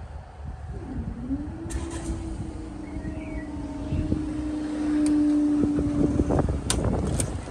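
Level-crossing barrier motor humming steadily as the booms lift, louder toward the end, then cutting off after about six seconds, followed by two sharp knocks as the barriers come to rest upright. Wind rumbles on the microphone underneath.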